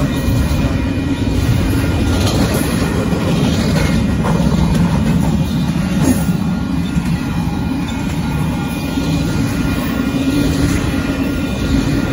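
Freight train cars rolling past a grade crossing: a loud, steady rumble of steel wheels on rail, with a few sharp clicks from the wheels.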